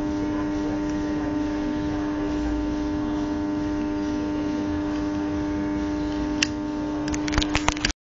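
A steady buzzing hum runs throughout. About six and a half seconds in there is one sharp metallic click, then a quick run of clicks near the end: a Zippo lighter's lid being flipped open and snapped shut during tricks.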